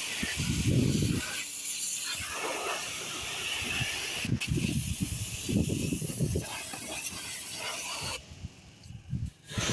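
Pressurised water spray hissing steadily while cleaning an air conditioner's outdoor unit, with uneven low rumbles mixed in; the spray stops for about a second near the end, then starts again.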